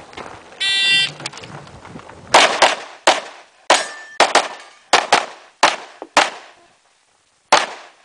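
An electronic shot-timer beep starts the stage. About a second and a half later comes a rapid string of about eleven pistol shots, many in quick pairs, echoing across the range.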